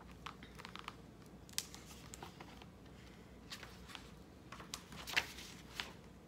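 Pages of a hardcover picture book being opened and turned by hand: faint paper rustles and light taps, scattered, a little livelier in the last couple of seconds.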